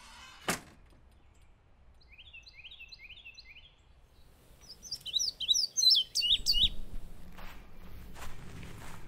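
Wild songbirds singing: first a quick series of short repeated chirps, then a louder, more varied song. A single sharp click comes about half a second in, and a few soft thuds near the end.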